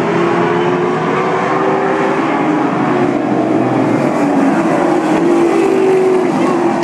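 Race car engines running at speed on an oval track, a steady loud drone whose pitch drifts slowly up and down as the cars lap.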